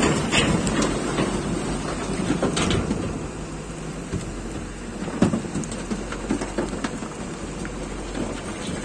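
Wind buffeting the microphone in a rough, uneven rumble, with a few sharp knocks, the loudest about five seconds in.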